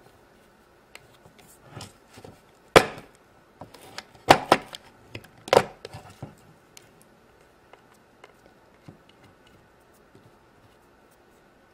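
Hard plastic toy pizza oven being handled and pressed: a few sharp, irregular knocks and clicks, the loudest about three seconds in and a cluster between about four and six seconds, with faint scuffing between and little after.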